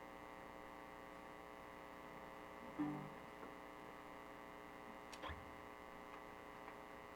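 Steady electrical mains hum from the sound system between speech and song, with one short plucked note about three seconds in and a sharp click about five seconds in.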